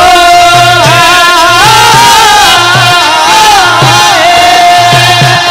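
Live Rajasthani devotional folk music: a male voice holds long notes that slide and waver over a sustained harmonium, with hand drums striking a steady beat about twice a second.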